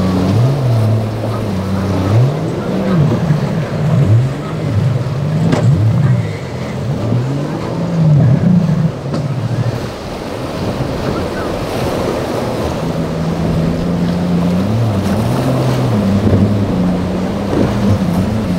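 Boat engines revving up and down again and again as boats are throttled through breaking waves, then holding a steadier pitch near the end, over the wash of surf and wind.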